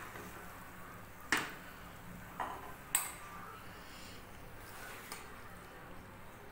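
Long steel spatula clinking against a steel kadai while scooping cooked banana-blossom and potato curry out into a bowl: three sharp metal clinks in the first half, and a fainter one later.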